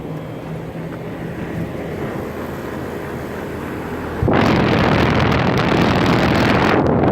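Outdoor air-conditioner condensing units running: a steady hum of compressor and condenser fan. About four seconds in, a much louder rushing of air on the microphone sets in suddenly.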